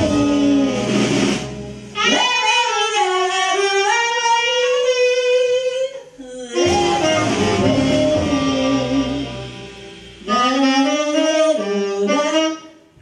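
Small jazz group performing live: a woman's wordless vocalese line, saxophone and trombone play long melodic phrases together, each a few seconds long with brief breaks between them. The sound falls away near the end as the piece closes.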